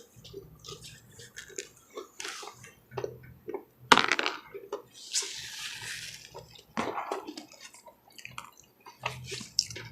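Close-miked eating of fried chicken: wet chewing and lip-smacking clicks, with one sharp click about four seconds in and a breathy hiss soon after.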